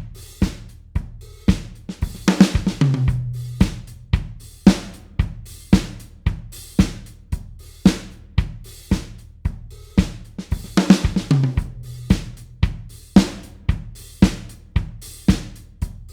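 Alternative-rock drum kit playing a steady beat of kick, snare, hi-hat and cymbals at about two hits a second. Twice, about two seconds in and about eleven seconds in, a quick tom fill falls in pitch.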